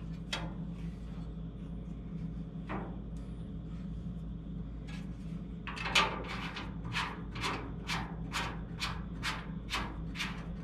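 Ratchet wrench clicking in short, regular strokes, about two a second, from about six seconds in, as half-inch-head bolts are run into the hood catch bracket. A couple of faint metal clicks come earlier, over a steady low hum.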